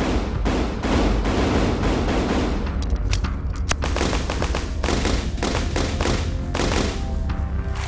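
Rapid gunfire: a dense string of shots, several a second, fired in quick volleys, over background music with a steady low bass.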